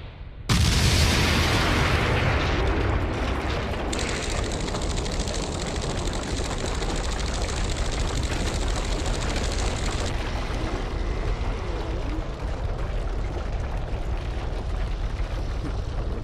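Animated sound effect of a huge blast: a sudden boom about half a second in, then a long, steady, deep rumble of crashing rock and rolling dust.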